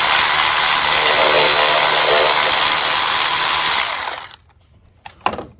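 Handheld power tool running at a steady speed with a high whine, then stopping suddenly about four seconds in. A couple of light clicks follow.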